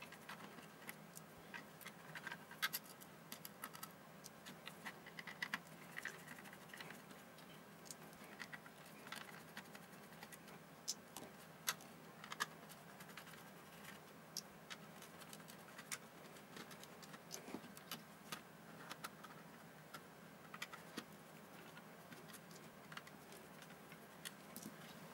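Faint, irregular clicks, taps and scrapes of a small screwdriver, screws and a plastic multimeter case and circuit board being handled during disassembly.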